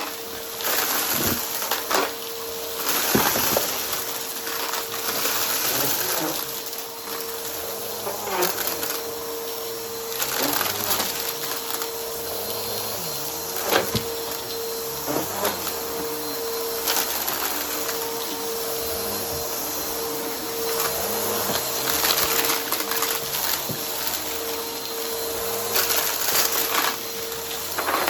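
Vacuum cleaner running with its brushroll spinning, a steady motor whine over a loud rushing hiss, with irregular sharp crackles and clicks as debris is sucked up and crunched.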